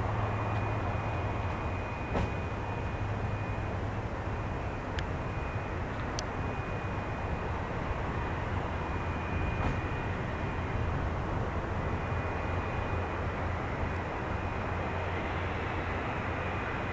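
Airbus A320 airliner's jet engines on final approach, heard from a distance as a steady low rumble with a faint high whine. A few faint ticks.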